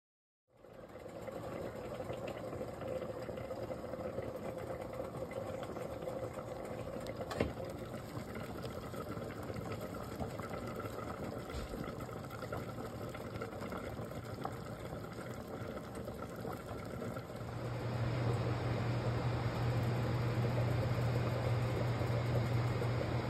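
Pot of pork neck bones at a rolling boil, bubbling over a steady hum. About three-quarters of the way through, a louder low hum sets in.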